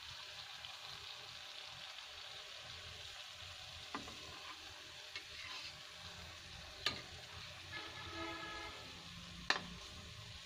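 Gujiyas deep-frying in hot oil in a kadhai: a steady sizzle while they are turned with a slotted spoon. Three sharp knocks of the spoon against the pan, the last two loudest.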